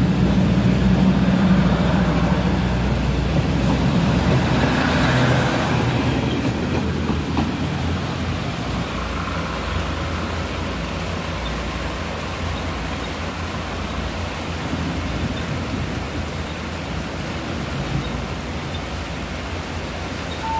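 Passenger train carriages rolling past close by as the train pulls out: a low rumble of wheels on the rails. After about six seconds it eases into a steady wash of outdoor background noise.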